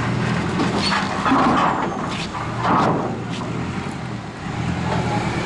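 An engine running steadily, with a few sharp knocks or clanks about two to three seconds in.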